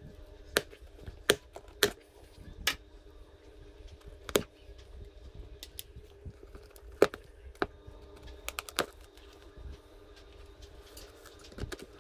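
Sharp clicks and snaps of hand tools at work, about a dozen at irregular intervals, over a faint steady hum.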